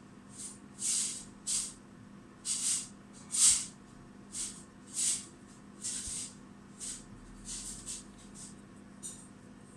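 Nokia 6103 mobile phone's small speaker playing a shaker-like tone: a string of short, hissy, irregularly spaced bursts, fainter toward the end.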